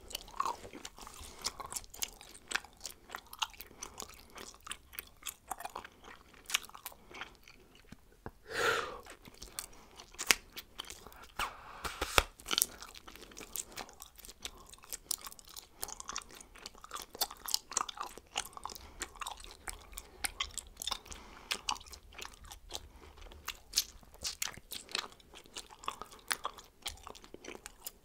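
A person chewing bubblegum with the mouth open: a steady run of quick wet clicks and smacks, with one sharper, louder snap about twelve seconds in.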